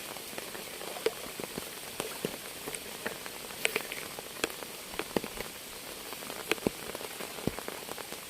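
Rain falling on water and the surroundings: a steady hiss with scattered sharp drops landing at irregular moments, a few louder ones near the middle.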